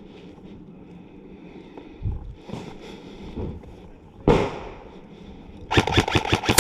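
Airsoft gun firing a rapid full-auto string of sharp cracks, about eight or nine a second, starting near the end, after a single loud bang about four seconds in.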